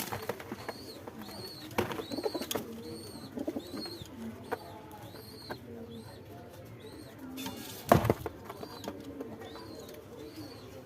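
Pigeons cooing in low, wavering calls, over a string of short high chirps repeating about twice a second. A few sharp knocks cut in, the loudest about eight seconds in.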